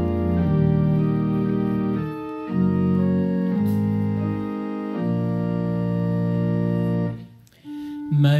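Organ playing a slow run of sustained chords, changing chord a handful of times, then breaking off about seven seconds in.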